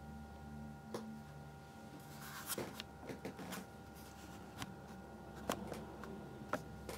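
Handling noise: scattered light clicks and a brief rustle over a steady low hum with a faint on-off tone. The clicks come singly about a second in, in a quick cluster a little after two seconds, and then every second or so toward the end.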